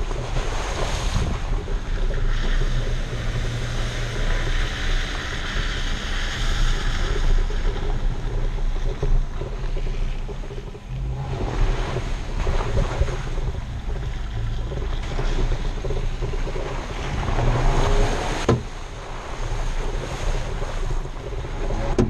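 Off-road vehicle on large knobby mud-terrain tyres driving along a dirt trail, picked up close to the front wheel: an engine drone, tyres on dirt and gravel, and wind buffeting the microphone. The noise swells and dips, easing briefly about eleven seconds in.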